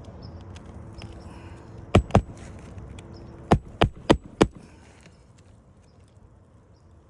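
Hammer blows on an asphalt-shingle roof: two sharp strikes, then four more in quick succession about a third of a second apart.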